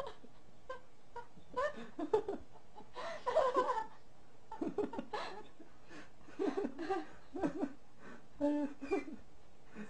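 People giggling and laughing in short, broken bursts with pauses between them.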